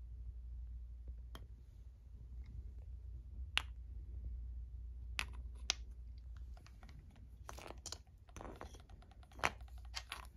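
Irregular light clicks and taps of something being handled, sparse at first and more frequent in the second half, over a low steady hum.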